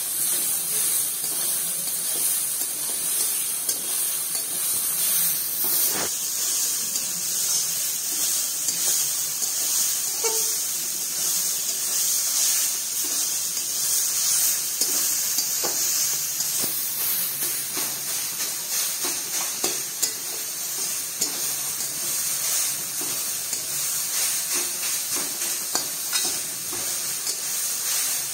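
Grated carrot, beetroot and peas sizzling as they are lightly sautéed in hot oil in a pan, stirred with a metal spatula. Scattered clicks and scrapes of the spatula on the pan sound over the steady hiss.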